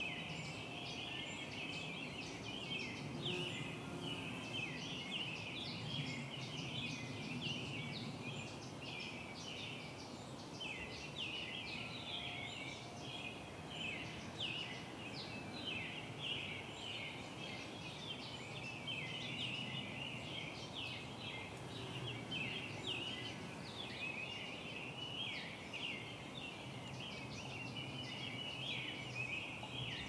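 A dense chorus of small songbirds chirping and twittering without pause, over a low steady hum.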